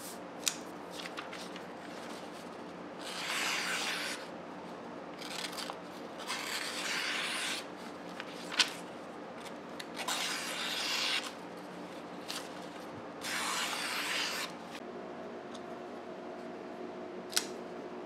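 Camillus pocket knife blade slicing through a sheet of paper in four long, hissing strokes, a paper-cutting test of the freshly sharpened edge. A few sharp clicks fall between the cuts.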